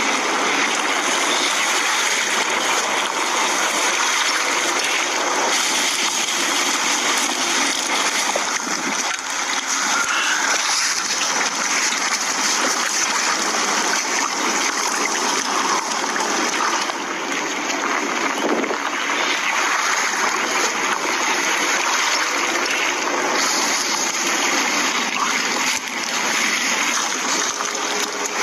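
Steady rush of heavy rain and flooding water: an even, unbroken hiss with no let-up.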